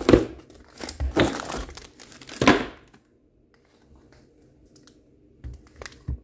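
Plastic shrink-wrap crinkling as wrapped packages of kitchenware are handled, in three loud rustles over the first three seconds. Then it goes quiet, with two soft knocks near the end.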